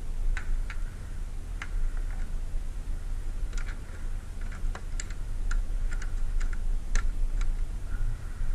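A dozen or so sharp, irregular clicks and taps of a hand handling the panel and window edge of a plastic hunting blind, over a steady low rumble of wind on the microphone.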